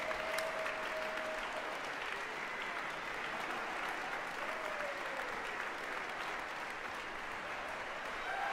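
Concert audience applauding steadily.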